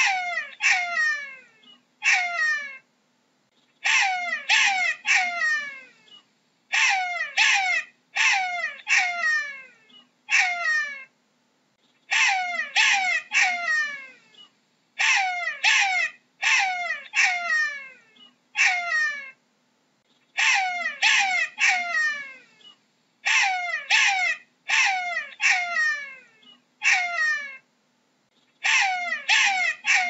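Jackal calling in repeated bouts, each bout a quick run of four or five high yelps that each fall steeply in pitch, the bouts coming about every three seconds.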